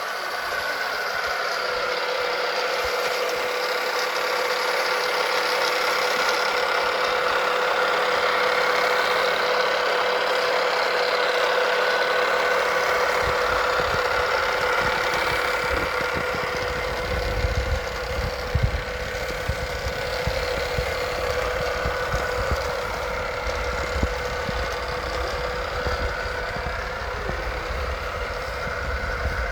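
Steady mechanical whirring hum from a toy car track. From about 13 seconds in, a low rumble with frequent clicking and clatter joins it, like die-cast cars running on plastic track.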